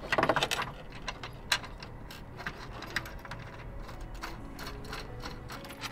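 Small metal tools and fittings clicking and clinking against a bracket as it is worked into place in a car's engine bay: a quick run of clicks at the start, a sharp click about a second and a half in, then scattered light ticks.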